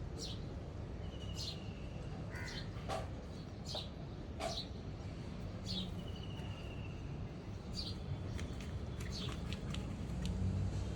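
Small birds chirping: about eight short, high calls that drop in pitch, spaced a second or so apart, and two brief buzzy trills, over a steady low rumble.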